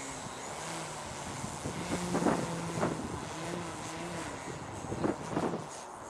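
A 2.2 m Yak 54 radio-controlled aerobatic model plane flying overhead: its motor and propeller hum steadily, with a higher note that rises and falls as it manoeuvres. A few gusts of wind hit the microphone.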